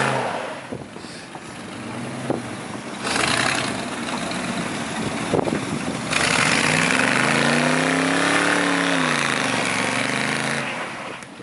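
Truck engines revving while a stuck pickup is pulled out of the mud. About halfway through, one engine's pitch rises and then falls back over a couple of seconds, over loud rushing noise that comes and goes.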